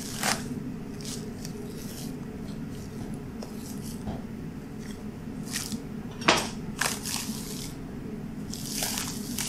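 A boning knife cuts and hands pull kidney fat away from a side of beef, giving short wet tearing and squishing sounds, the sharpest about six seconds in. A steady low hum runs underneath.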